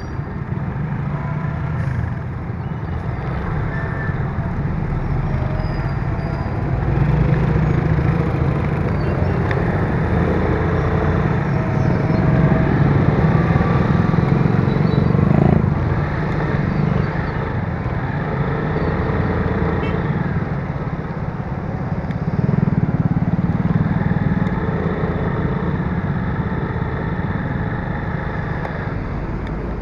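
Motorcycle engine running under way in town traffic, swelling louder several times as the throttle opens, over steady road and wind noise and the engines of nearby motorcycles, tricycles and cars.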